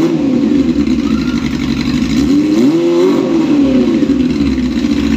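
Honda CB400 Super Four's four-cylinder engine running through an aftermarket SC exhaust, revved by hand: the revs drop back at the start, then one throttle blip rises and falls about two to three seconds in before settling to a steady idle.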